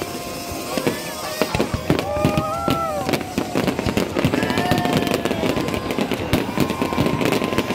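Aerial fireworks bursting in quick succession, many sharp bangs and crackles overlapping without a break.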